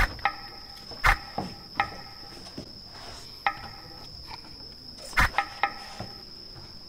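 Crickets singing in one steady high-pitched trill, with sharp knocks near the start, about a second in and about five seconds in, and several short ringing clicks between them.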